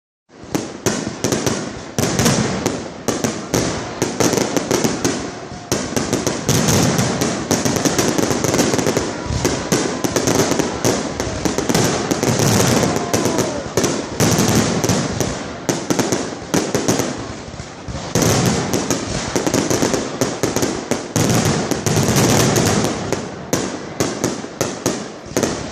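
Fireworks finale: a dense, rapid barrage of explosions going off almost without a break, easing off briefly about eighteen seconds in before building again.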